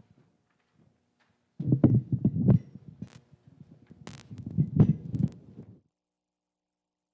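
Handheld microphones being handled and passed around, making dull thumps and rubbing noise with a few sharp clicks, in two clusters over about four seconds.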